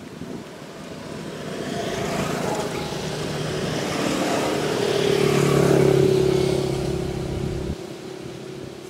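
A motor vehicle passing by. Its engine sound swells to a peak about six seconds in, then fades, and the low rumble drops away sharply near the end.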